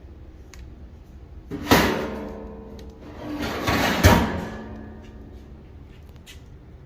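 Wooden table drawer slid along its runners twice, about two seconds apart, each slide ending in a sharp knock as it stops, with quiet background music underneath.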